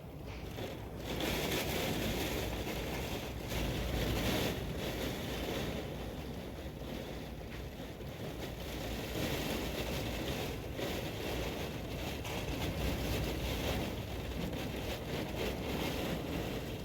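Strong typhoon wind gusting, a rushing noise that swells and eases several times.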